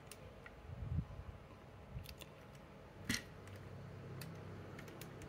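Plastic parts of a Transformers Studio Series 86 Optimus Prime figure clicking and tapping as its waist and torso panels are pushed into place. A few soft clicks, the sharpest about three seconds in.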